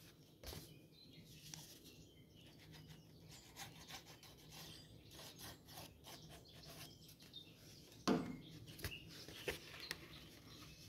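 Sheets of card stock being handled, folded and pressed flat by hand: faint paper rustling and rubbing, with small clicks and one louder brief sound about eight seconds in.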